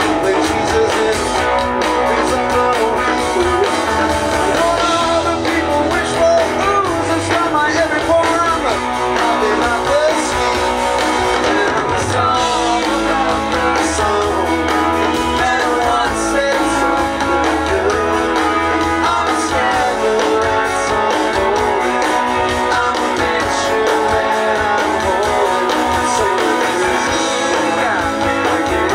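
A live rock band playing, with guitars and a singer.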